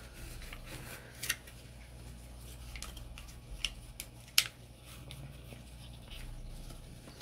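Cloth rag wiping over a Glock 19X's polymer frame: soft rubbing, with a few light clicks and taps as the frame is handled. The sharpest click comes about four seconds in.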